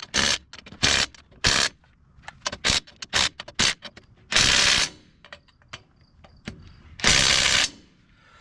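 Hand tools working on a wheel: short strokes of a ratchet wrench clicking, with scattered metal clicks and two longer half-second bursts of dense rattling noise.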